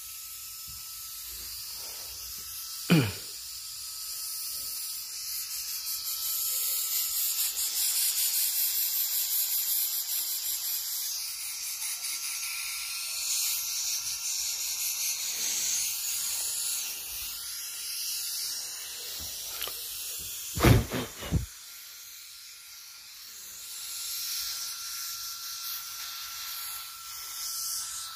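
High-pressure air hissing out of a Monel PCP air rifle's 4000 psi air tube as it is bled slowly through a male quick-coupler pressed into the valve, the hiss swelling and fading. The tube is being emptied this way because the teflon valve blocks the transfer port, so firing will not release the air. A sharp knock about three seconds in and two more around twenty-one seconds.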